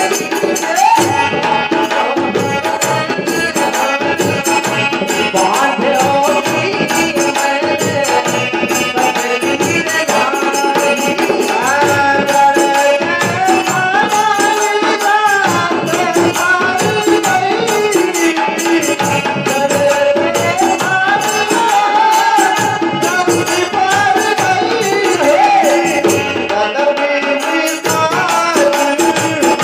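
Bagheli Ramayan folk singing: a voice carrying a gliding melody over a steady rhythm of hand drums and a jingling rattle.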